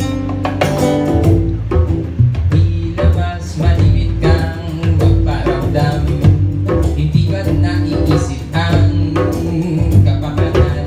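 Live band playing: acoustic guitar, electric bass and a hand drum in a steady groove, with a man singing over them.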